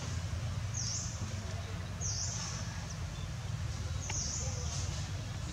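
Outdoor ambience: a short, high-pitched call repeats four times, one to two seconds apart, over a steady low rumble.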